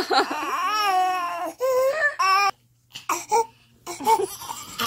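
Infant crying in long, wavering wails that break off about two and a half seconds in, followed by short, broken fussing cries.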